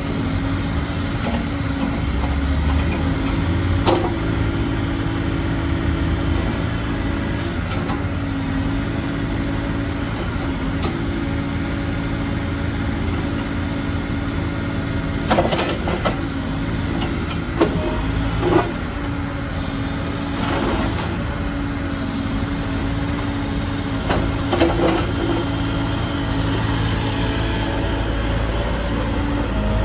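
Bobcat E50 mini excavator's 49.5 HP Doosan diesel running steadily under hydraulic load as the boom, bucket and upper structure are worked. A few sharp metallic knocks come from the machine, the loudest a little past the middle.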